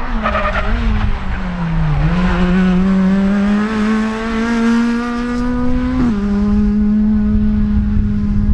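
Ford Fiesta rally car's engine passing close on a gravel stage. The engine note dips as it slows about two seconds in, then climbs steadily under acceleration until a sudden drop near six seconds as it shifts up a gear, and holds steady as the car pulls away.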